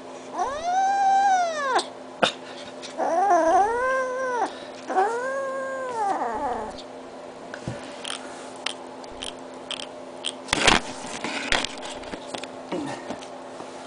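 Black kitten giving three long, drawn-out yowls over a piece of raw meat, each call rising and then falling in pitch. After them come scattered small clicks, with one sharp knock about ten and a half seconds in.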